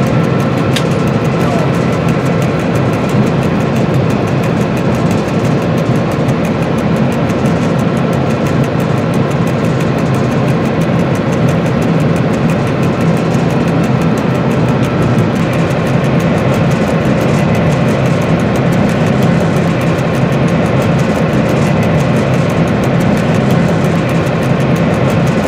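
Dr12 diesel-hydraulic locomotive's V12 diesel engine running steadily, heard from inside the cab while the locomotive rolls along.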